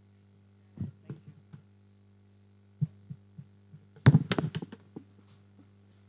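A steady electrical hum with scattered knocks and taps: a few about one second in and again near three seconds, then a louder quick cluster of knocks about four seconds in.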